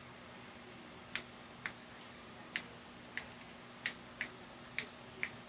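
About eight short, sharp clicks at uneven intervals, over a faint steady hum.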